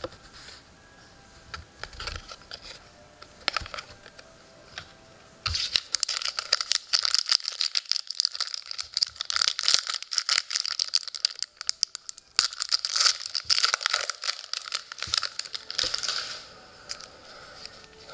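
Foil wrapper of a hockey card pack being torn open and crinkled: a dense crackle from about five seconds in, with a short break about twelve seconds in, dying away near the end. Before it come a few soft ticks of trading cards being handled.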